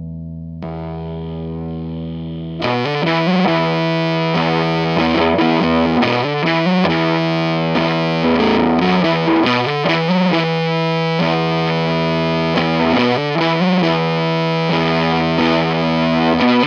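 Electric guitar played through a Chase Bliss Bliss Factory fuzz pedal set in its stable 'safe position', with comp, gate and drive at minimum and stab at maximum. A held chord turns fuzzy and brighter about a second in as the pedal is switched on. Repeated distorted chords are strummed from about three seconds in.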